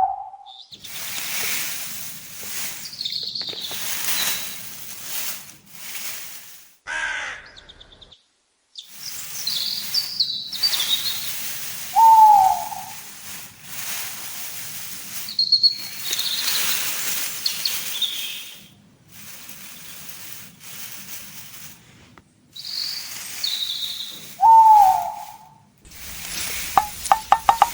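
Birds calling: scattered high chirps, and a lower falling call repeated three times about twelve seconds apart. A quick run of clicks comes near the end.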